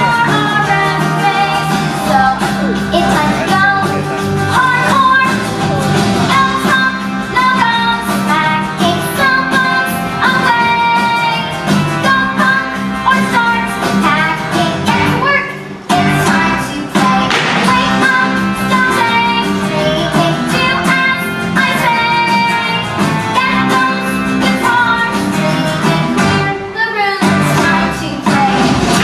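A song with singing over a steady instrumental accompaniment, with two brief breaks in the music.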